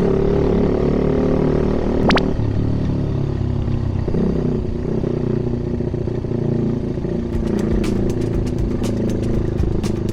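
Honda Gorilla minibike's small single-cylinder four-stroke engine running, on a bike with an abnormal noise the owner is trying to find. There is a sharp click about two seconds in, then irregular sharp ticks from about seven seconds in.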